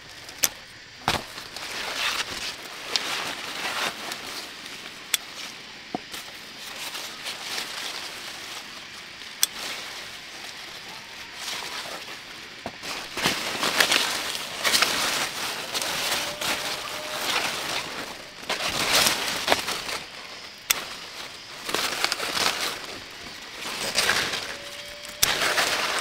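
Leafy garden plants rustling in repeated bursts as vegetables are picked by hand. There are a few sharp clicks scattered through, scissors snipping stems.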